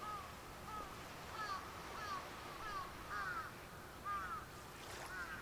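Birds calling: a quick series of short, arched calls, roughly two a second and uneven in spacing, over a faint steady background hiss. A brief scratchy sound comes near the end.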